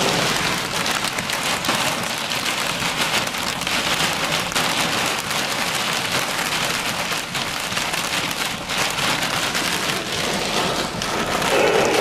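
Hail and heavy rain drumming on a truck's roof and windshield, heard from inside the cab: a dense, steady rush of noise full of small sharp hits, driven by strong wind.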